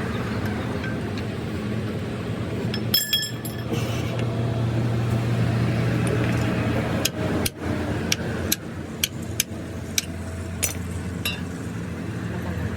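Metal parts clinking and tapping, with a ringing clink about three seconds in and a run of sharp taps later on, over a steady low machine hum.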